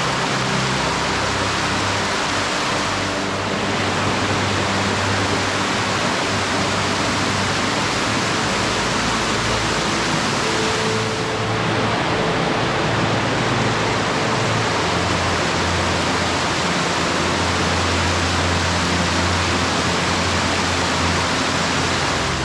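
Water rushing steadily, a dense even roar, with soft background music underneath.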